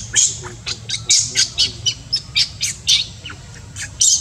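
Newborn macaque crying in short, high-pitched squeals, about four a second, as its mother pins and handles it: infant distress cries.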